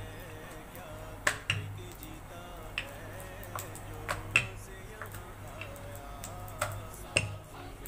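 Paratha dough being rolled with a rolling pin and worked by hand on a wooden board: several sharp taps and knocks a second or more apart, the loudest a little past halfway, over a low steady hum.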